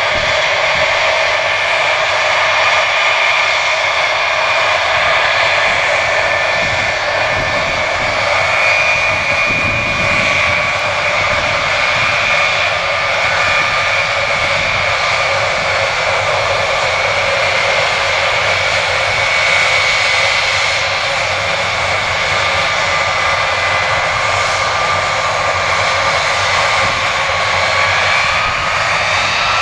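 Boeing C-17A's four turbofan jet engines running: a steady loud rush with a high whine that sinks slightly, then climbs again near the end.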